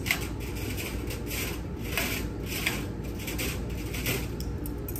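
Soft rubbing and rustling from hands handling things on a surgical instrument tray, a string of short scrapes every half second or so, over a steady low hum.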